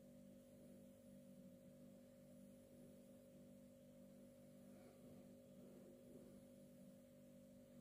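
Near silence: room tone with a faint steady hum of a couple of low tones.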